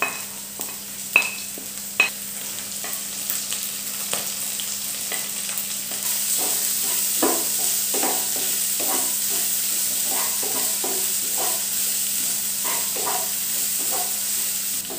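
Chopped green beans and carrots sizzling in hot oil in a kadai on high flame. A spoon clicks sharply against the plate a few times as the vegetables are tipped in. The spoon then stirs and scrapes them around the pan, and the frying hiss grows louder about six seconds in.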